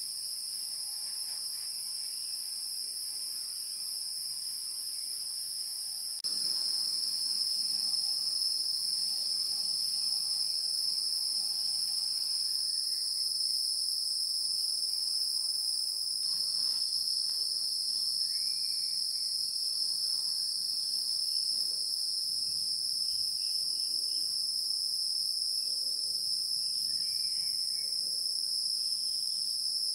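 A steady, high-pitched chorus of trilling insects, unbroken throughout, that gets abruptly louder about six seconds in.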